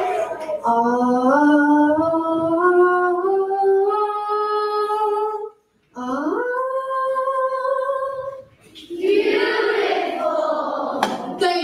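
Children's choir singing held notes that step upward in pitch, then breaking off briefly about five and a half seconds in. They come back with a note that slides up and is held, then another sung phrase, with a couple of sharp clicks near the end.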